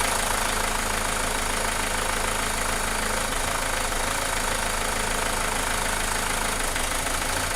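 Renault Mégane II engine idling steadily.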